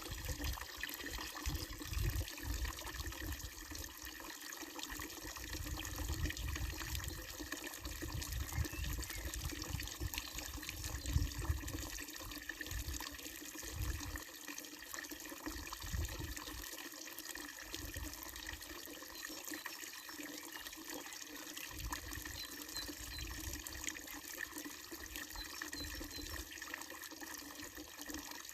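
Water running steadily from a wooden-trough village fountain and splashing into its basin, a continuous pouring stream. Low rumbles come and go beneath it.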